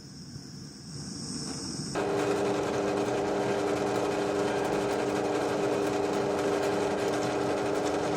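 A small electric power tool's motor running steadily under light load, with a steady hum and a rasping noise. It starts abruptly about two seconds in; before that only crickets chirp faintly.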